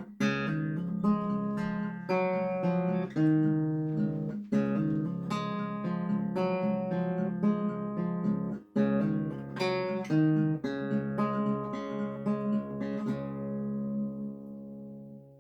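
Background music: an acoustic guitar picking notes and strummed chords, with a brief break about two-thirds of the way in and a final chord left ringing out near the end.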